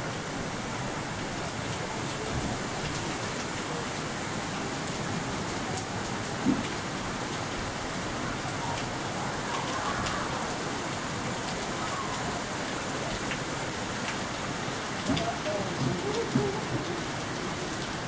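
Steady rushing and splashing of falling water at a water mill whose wheel is stopped, with a single knock about six and a half seconds in.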